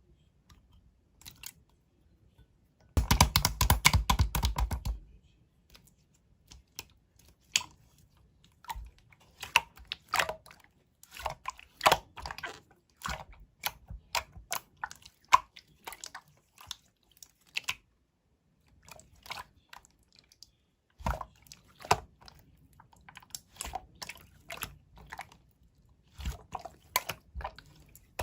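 Slime being squeezed and poked by hand, giving crackling, popping clicks. A dense run of rapid clicks comes about three seconds in, then scattered pops follow, with a lull of a few seconds before the last stretch.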